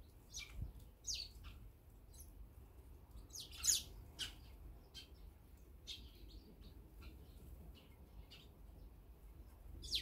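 Eurasian tree sparrows chirping: scattered short, high chirps from several birds, the loudest cluster about three and a half seconds in.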